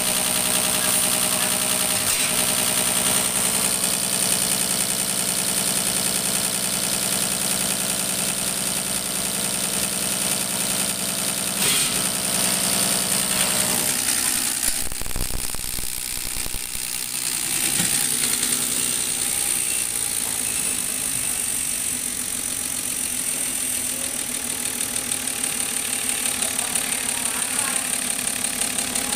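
Diesel injection-pump test bench driving a Stanadyne rotary injection pump during a fuel-delivery calibration run: a steady mechanical hum with a high hiss. About halfway through, the drive slows and the lower hum drops away.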